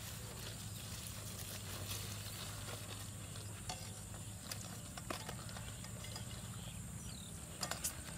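Quiet handling sounds of wet netting and weeds being sorted by hand: a soft crackling rustle of a plastic sheet and water hyacinth, with a few light clicks and taps, over a steady low hum.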